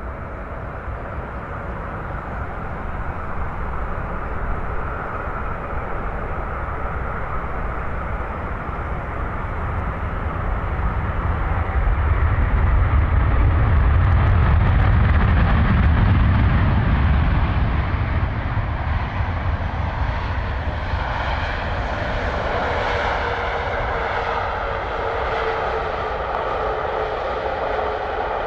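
Boeing 787-9 jet engines on a landing pass: a low rumble that swells to its loudest about halfway through, then gives way to a higher engine whine with several tones in the second half.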